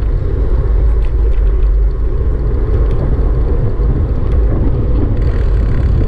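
Car travelling on a highway: a steady, loud low rumble of road and wind noise.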